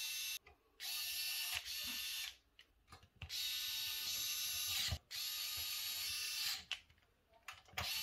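Cordless electric screwdriver whirring in several short runs of about a second each with brief pauses, driving the screws that fix a power supply to its mounting bracket.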